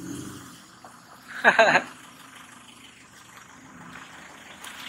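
Steady low running noise of a car, with one short falling-pitch vocal exclamation about a second and a half in.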